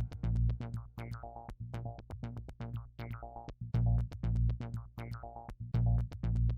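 Electronic background music: a synthesizer melody over a steady drum-machine beat with heavy bass hits.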